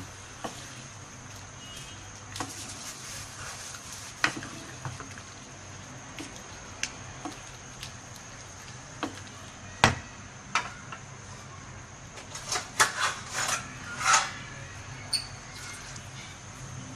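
A spoon stirring minced meat, sliced onions and spices in water in a pan, knocking and scraping against the pan at irregular moments. The loudest knock comes about ten seconds in, and a quick run of clatters follows a few seconds later, over a steady low hum.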